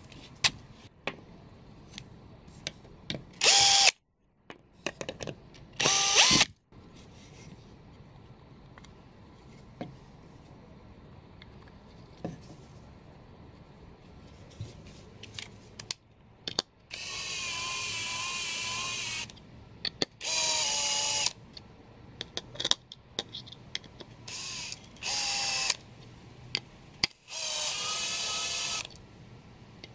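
Cordless drill-driver driving screws into plywood: two brief spurts early, then four runs of one to two seconds each in the second half. Small clicks and knocks of handling come between the runs.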